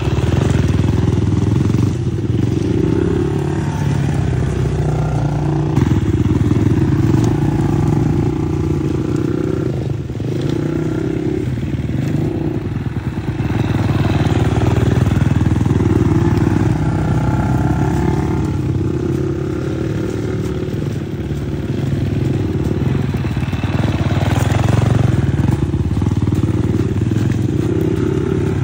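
Dirt bike engines running close by, revving up and falling back over and over as the bikes ride slowly around.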